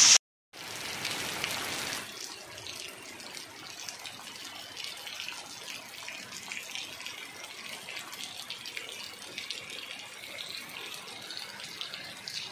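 Steady rain falling: an even hiss with no distinct drops or rhythm. It drops out for a moment just after the start, is a little louder for the next second or so, then continues more softly.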